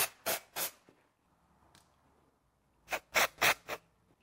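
Aerosol can of dry shampoo sprayed onto the hair roots in short hissing bursts: three quick puffs at the start, then four more about three seconds in.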